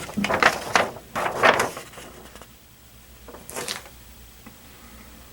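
Paper handling: a large folded paper poster and record sleeve being pulled out and unfolded, rustling loudly for about two seconds, then a single short crinkle a little later.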